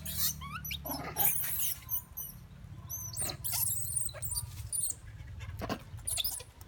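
Baby pigtail macaque giving a string of short, high-pitched squeaks and squeals, each call bending in pitch, over a steady low hum.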